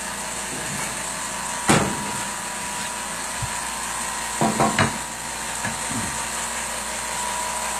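A single wooden knock about two seconds in, then a quick run of knocks and clatter around four and a half seconds, over a steady machine hum.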